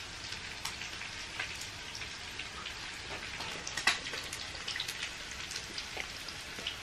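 Chicken frying in hot oil in a pan: a steady crackle with scattered sharp pops, one louder pop about four seconds in.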